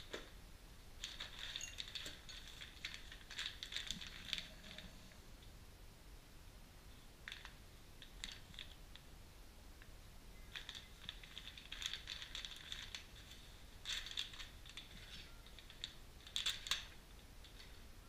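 Plastic parts bags crinkling and rustling as they are handled, in several short spells with a few light clicks and taps between them.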